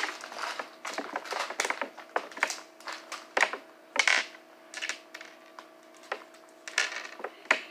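Irregular clicks, taps and light clatter of small plastic containers and craft supplies being handled and put away.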